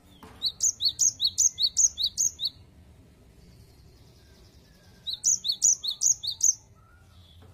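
Cinereous tit (gelatik batu) singing its repeated two-note 'wucit wucit' song: two phrases of quick paired whistles, about three pairs a second, the first about two seconds long and the second, after a pause of about two and a half seconds, about a second and a half long.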